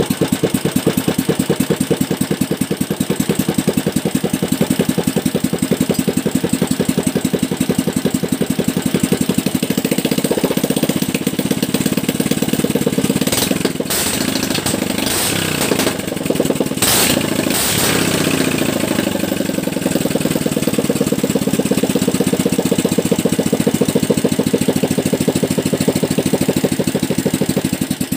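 Small single-cylinder OHV engine, a Motoyama, running with a steady firing beat. Its note wavers and gives a few sharp blips partway through while the carburettor is worked, then settles back.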